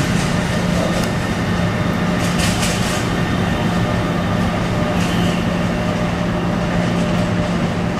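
Amtrak Crescent passenger train rolling away along the track: a steady rumble with a constant low hum, broken by a few brief clicks about a second in and again two to three seconds in.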